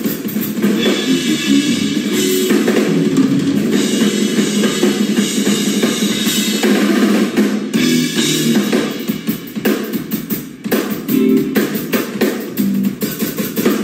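A live instrumental jazz-funk band plays: a drum kit with bass drum, snare and cymbals drives under electric guitar and bass.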